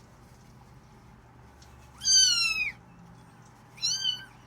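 Young kittens meowing twice: a longer high-pitched meow falling in pitch about two seconds in, then a shorter one near the end.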